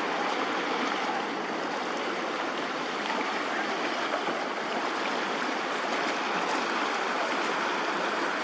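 Floodwater flowing steadily, with a continuous, even rushing of water.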